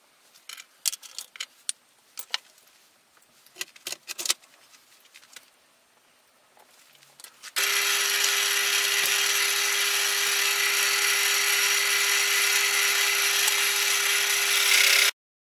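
A few light clicks and taps of handling at the lathe, then about halfway through a small wood lathe is running at speed with a steady hum and whirr as the wooden handle blank spins. The running sound cuts off abruptly near the end.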